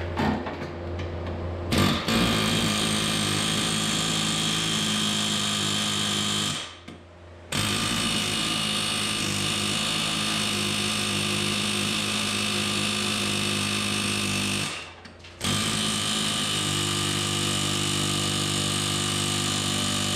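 Pneumatic air hammer run in three long bursts with short pauses between them, starting about two seconds in, driving against the seized front axle pivot pin of an International 574 tractor.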